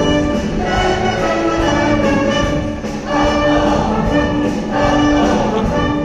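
Upbeat band music with prominent brass and a steady beat, easing off briefly about halfway through.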